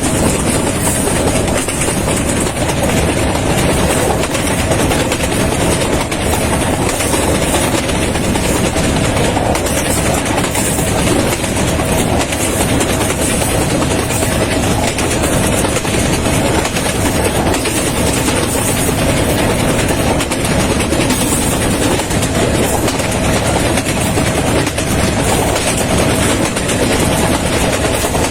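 Passenger train running steadily on the rails, heard from inside a carriage: a continuous, even wheel-and-track noise with a faint steady tone in it.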